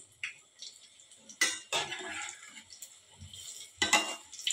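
Perforated metal skimmer clinking and scraping against a metal kadhai while patties deep-fry, over a steady faint sizzle of hot oil. The two loudest knocks come about a second and a half in and near the end.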